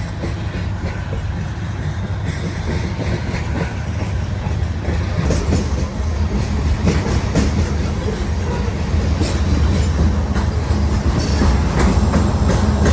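Freight train rolling past, with a heavy low diesel rumble and wheels clicking over the rail joints, growing steadily louder.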